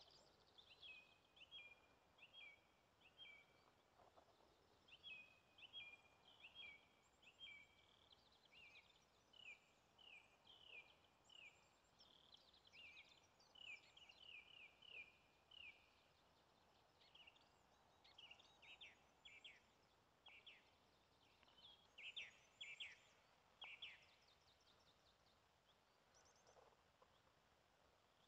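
Faint songbirds chirping: runs of short, quick, high chirps, several a second, broken by a few short pauses.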